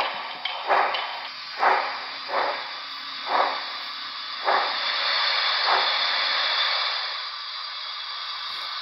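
Sound system of a model PRR L1 2-8-2 steam locomotive: simulated exhaust chuffs about a second apart, coming further apart as the engine slows, then a steady hiss of steam from about halfway through.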